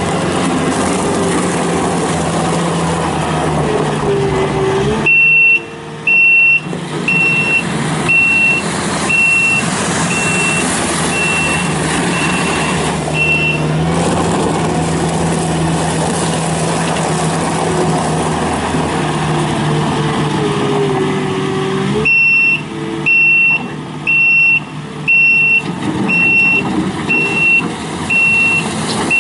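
Kubota SSV65 skid steer loader's engine running steadily under operation. Twice, about five seconds in and again a little past twenty seconds, its reverse alarm sounds: a high beep about once a second as the machine backs up.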